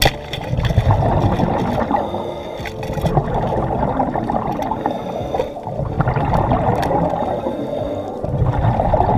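Speargun firing underwater with one sharp snap right at the start, then a continuous underwater rushing and churning with scattered small clicks as the speared grouper struggles on the shaft.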